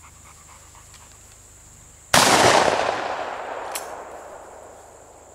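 A single shotgun shot about two seconds in, its report rolling away slowly over about three seconds. A short sharp click follows about a second and a half later.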